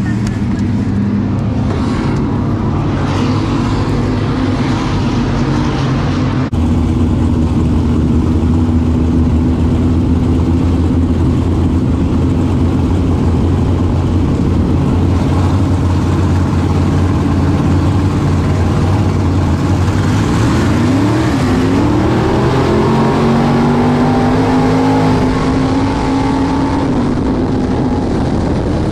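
Limited Modified dirt race car's fresh engine heard from inside the cockpit. It runs at lower revs at first, then the sound switches abruptly about six seconds in to steady high racing revs. Later the revs dip and climb again as the driver lifts off and gets back on the throttle.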